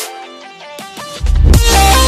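Background electronic music. It thins to a quiet break, then heavy bass comes back in a little over a second in.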